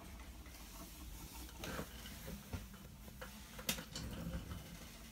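Acoustic Research XA turntable running with its belt-driven platter spinning: a faint steady low hum with a few scattered light clicks.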